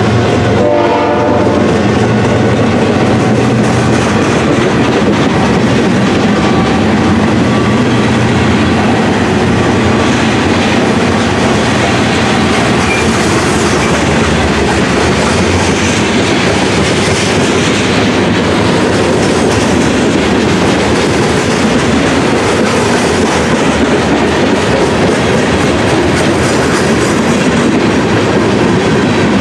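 Freight train cars rolling past close by: a loud, steady rumble and clatter of steel wheels on the rails.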